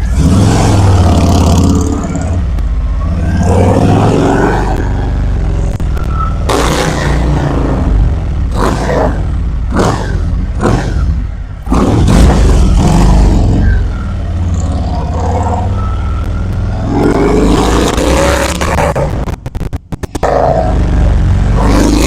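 Harley-Davidson Milwaukee-Eight V-twin engine running through Sharkroad 36-inch chrome fishtail slip-on mufflers on straight headers, with a steady low rumble that swells louder several times as the revs rise.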